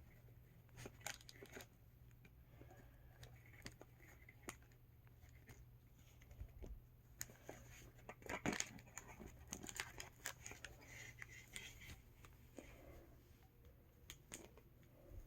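Faint handling sounds of a doll being untied and freed from its packaging: scattered small clicks, snips and rustles, busiest around the middle, over a low steady hum.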